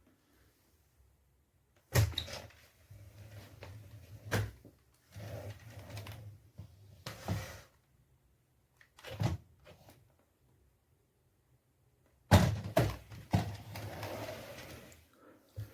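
A series of knocks and thumps, several seconds apart and loudest about two seconds in and again near twelve seconds, with quieter rattling and handling noise between them.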